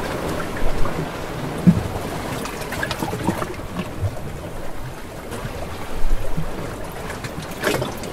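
Stormy-sea sound effect: a steady rushing, watery noise with scattered low thumps and a few sharper knocks near the end.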